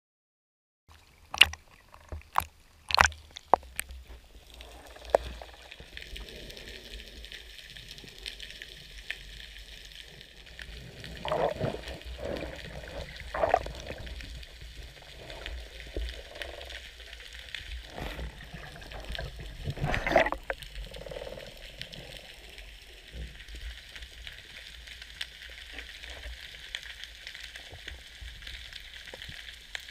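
Muffled underwater sound from a diver's camera. A few sharp knocks come in the first few seconds, then a steady hiss, broken by gurgling water and bubble bursts around the middle and again about two thirds in.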